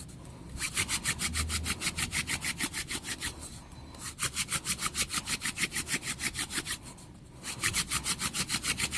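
Mullein hand-drill spindle spun back and forth between the palms against a cedar hearth board: a fast rasping wood-on-wood rub, about six or seven strokes a second, in three bouts with brief pauses. The friction is heating the board toward an ember.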